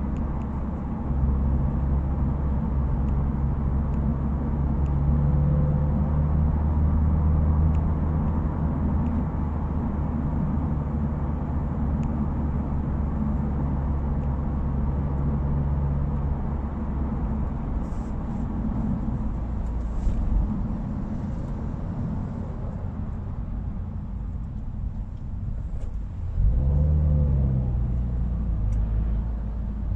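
Subaru WRX's turbocharged flat-four engine and exhaust droning low and steady while driving slowly in traffic, then rising in pitch and getting louder as the car accelerates near the end.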